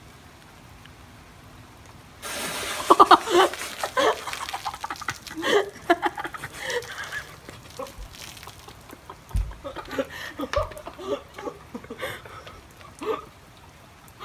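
Diet Coke fizzing and spraying as Mentos are dropped in: a sudden hiss of foaming soda about two seconds in that fades over several seconds, with voices and laughter over it.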